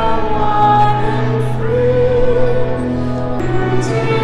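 Live sung music: a voice holding long notes with a wavering vibrato over a steady low held note, with choir-like backing.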